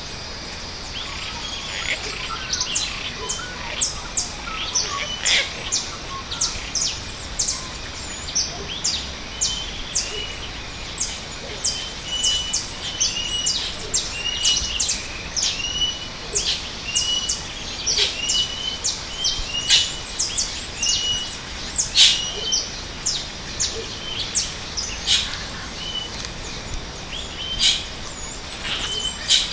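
Forest bird chorus: many small birds giving quick, high chirps that overlap, and a short hooked call repeating about once a second.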